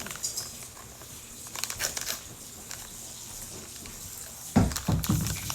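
Small plastic toy items being handled and set down, with light clicks and rustling, and a louder thump about a second before the end.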